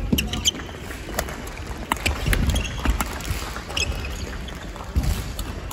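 Badminton singles rally: sharp racket strikes on the shuttlecock at irregular intervals, with players' shoes thudding and scuffing on the wooden court floor.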